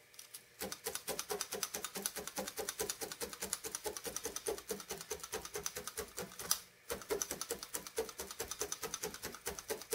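Multi-needle felting punch tool stabbing repeatedly through loose wool into a burlap-covered felting pad, about six quick strokes a second with a brief pause a little after halfway. This is the wool being felted flat into a sheet.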